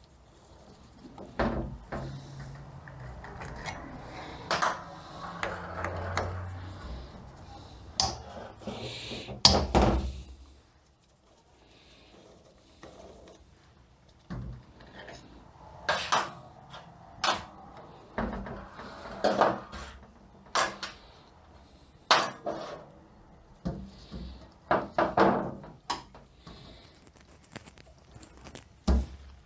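Metal parts and hand tools of a 42RE automatic transmission clinking and knocking on a workbench during teardown, with many separate sharp knocks. A low steady hum runs under the first several seconds.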